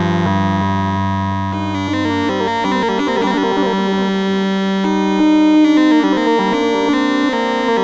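Moog Spectravox analog synthesizer voice, its oscillators running through the filter, playing sustained notes that change pitch every second or two. Its overtones shift and criss-cross for a stretch about two to three seconds in.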